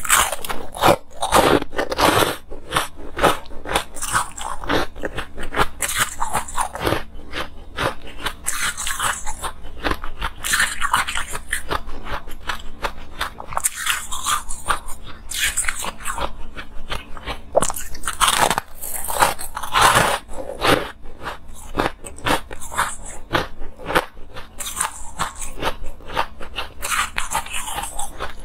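Biting into and chewing blocks of packed, granular ice, close to a clip-on microphone: a dense, continuous run of crisp crunches and crackles.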